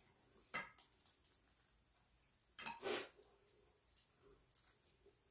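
Quiet eating and table sounds: chopsticks and fingers pulling apart pan-fried conger eel on a platter. There are two brief louder noises, one about half a second in and the louder one just under three seconds in.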